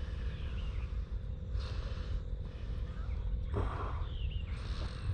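Steady low outdoor rumble with a few short bird chirps, broken by three brief breathy or rustling noises.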